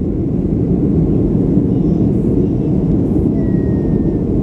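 Boeing 737-800 cabin noise in flight: the steady low rumble of its CFM56-7B jet engines, heard from a window seat inside the cabin.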